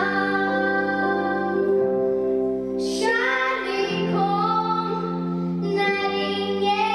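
Children singing a musical-theatre song over instrumental backing, with long held notes.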